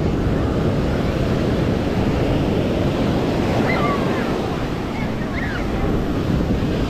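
Ocean surf washing onto a sandy beach, mixed with wind rumbling on the microphone. Faint brief voices come through in the middle.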